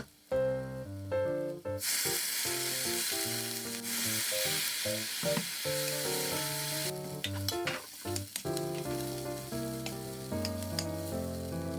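Food sizzling in a hot frying pan for about five seconds, starting about two seconds in and stopping abruptly, over background music.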